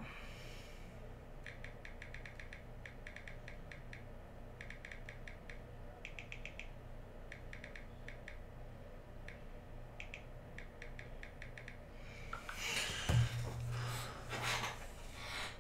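Typing on a computer keyboard: short bursts of rapid key clicks with pauses between them, then a thump and a rustle of handling near the end.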